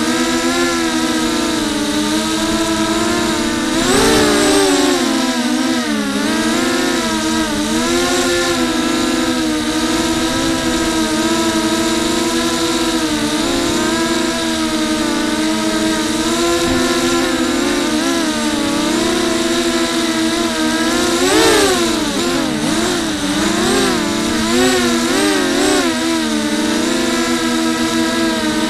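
FPV racing quadcopter's electric motors and propellers whining, heard from on board. The pitch rises and falls constantly with the throttle, with sharp surges a few seconds in and about two-thirds of the way through.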